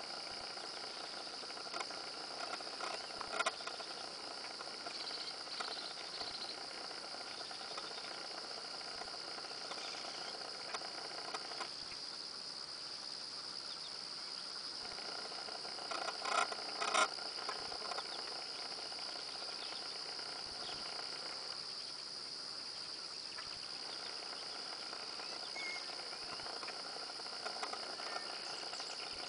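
Steady, high-pitched drone of insects, with a few brief louder sounds about three and a half seconds in and again around sixteen to seventeen seconds.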